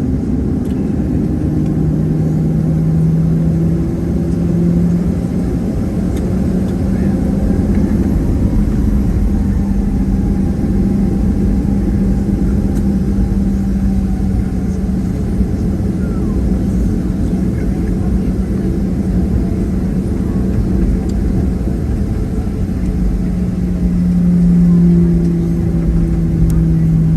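Cabin noise of a Boeing 737-700 with its CFM56-7B jet engines running at low power: a steady low rumble under a droning hum that swells briefly near the start and again near the end.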